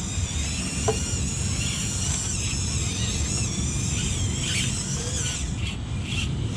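High-pitched whine from a 1/24-scale RC rock crawler's small electric motor and gears, wavering in pitch as it climbs over rocks. A low steady rumble lies under it, with a single click about a second in.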